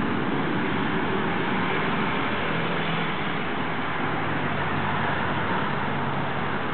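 Steady rushing background noise with a faint low hum, unchanging throughout.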